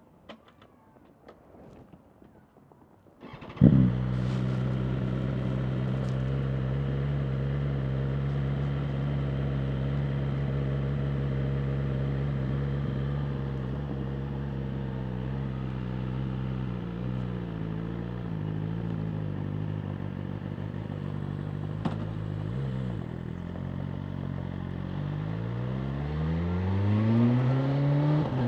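BMW M1000R Competition's inline-four engine starting about three and a half seconds in with a sharp burst, then idling steadily. Near the end the revs climb smoothly.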